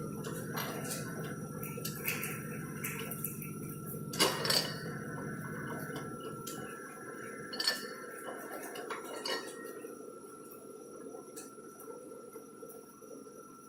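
Kent SGS-1020AH hydraulic surface grinder running, with a steady hum and a thin steady whine, and a few sharp metallic clinks and clanks. The low hum drops away about halfway through, leaving the whine and occasional clinks.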